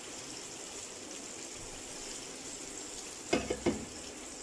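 Flour-coated eggplant slices frying in hot oil in a pan, a steady sizzle. About three quarters of the way through come two short knocks.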